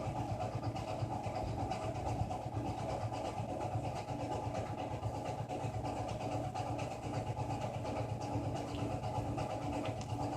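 Steady low rumbling background noise that almost sounds like a train going by; its source is unknown. A faint steady tone comes and goes over it in the second half.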